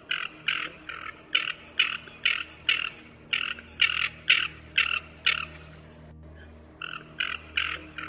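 Ferruginous duck calling: a run of short, clipped calls, about two to three a second, that break off for a second or so after about five seconds and then start again.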